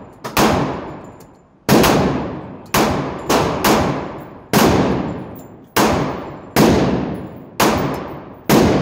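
Pistol fired shot by shot in an indoor range: about ten sharp shots, spaced unevenly at roughly a second apart, a few coming in quicker pairs. Each shot is followed by a long echoing tail that fades off.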